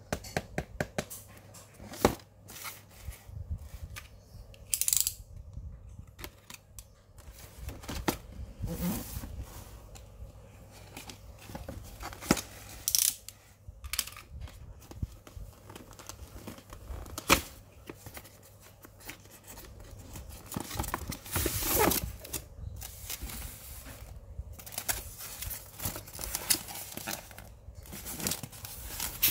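Unboxing a model car: the cardboard box and its styrofoam inner case are handled by hand, rubbing, sliding and tearing, with many scattered clicks and taps. A longer scraping rasp comes about two-thirds of the way through.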